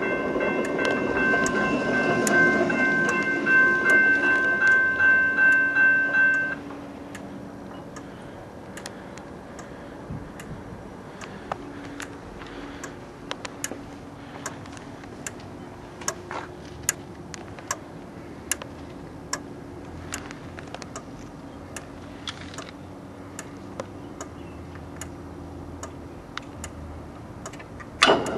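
Railroad crossing bell ringing with quick repeated strokes, then cutting off abruptly about six seconds in as the gate reaches fully down and its contact opens the bell circuit. After a long quieter stretch with only faint scattered clicks, a sharp click near the end and the bell starts ringing again as power returns and the gate begins to rise.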